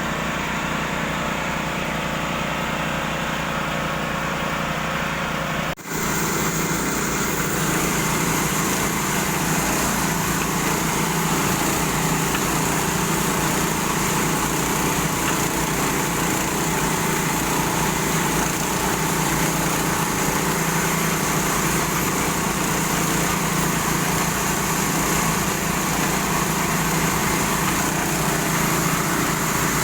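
A small 0.5 hp 'satelit' water pump running steadily while it drives water for drilling a borewell. It drops out for a moment about six seconds in, then runs on slightly louder.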